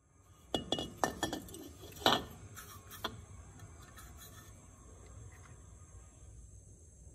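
Several sharp metallic clinks in the first three seconds, the loudest about two seconds in, as metal car parts are handled over a tiled floor. After that, a steady faint background of insects chirping.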